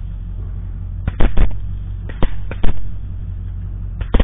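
A volley of rifle shots from several hunters firing together at a running feral hog: sharp cracks in quick clusters about a second in, about two seconds in, and again near the end, over a steady low hum.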